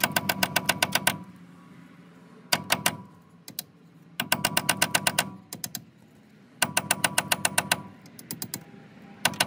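A hammer tapping a T55 Torx bit into the head of a brake caliper bolt, metal on metal. The blows come in quick bursts of about ten light strikes a second, each strike ringing briefly, with short pauses between bursts.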